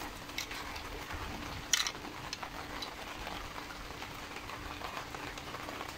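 Gloved hands fitting a plastic throttle cam onto a two-stroke mower carburetor: a few faint plastic clicks and handling sounds, one sharper click about two seconds in, over a steady hiss of rain and a faint low hum.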